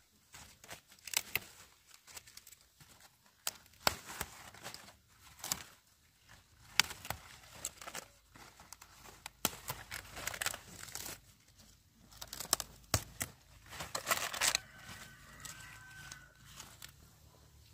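Leaves rustling and tearing, with irregular sharp snaps, as of leafy vegetables being picked by hand.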